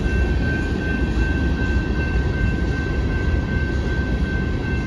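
Loaded open-top hopper cars of a freight rock train rolling past at the crossing: a steady, heavy low rumble of wheels on rail, with a thin high tone held steady over it.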